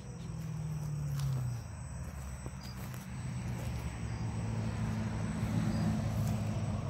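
Traxxas TRX-4 RC crawler's electric motor and geared drivetrain whirring at crawling speed as it climbs a concrete slab. The pitch eases off about a second in and picks up again from about three seconds, rising toward the end.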